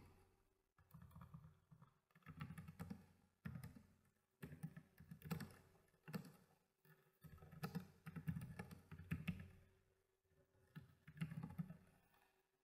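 Faint typing on a computer keyboard: keystrokes in quick bursts with short pauses between them.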